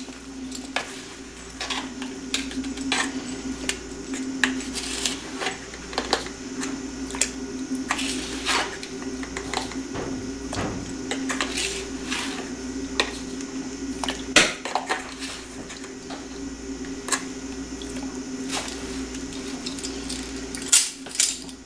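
A plastic measuring spoon scooping powdered sodium carbonate (washing soda) from a plastic jar, with irregular clicks, taps and scrapes of spoon on jar, over a steady low hum.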